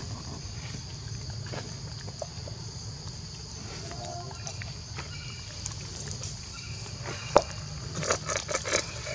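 A metal bowl of fruit handled by a baby pigtail macaque: one sharp knock about seven seconds in, then a quick run of clicks and rattles as the monkey grabs the bowl's rim. Underneath is a steady high-pitched outdoor drone.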